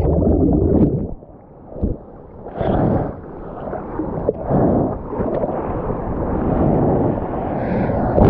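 Broken surf and splashing seawater rushing around a GoPro held at the sea surface, with wind buffeting its microphone. About a second in the rushing drops away for a second or so, then the splashing and churning water come back and run on steadily.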